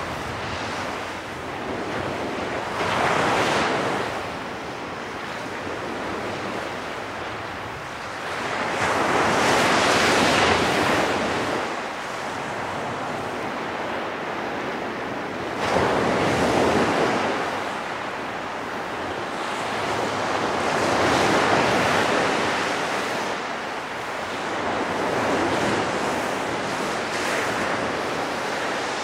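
Surf washing onto a sandy beach, a steady rushing hiss that swells and falls back every five or six seconds, with wind buffeting the microphone.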